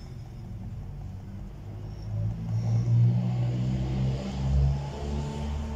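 Low rumble of a motor vehicle engine, swelling about two seconds in and easing off somewhat near the end.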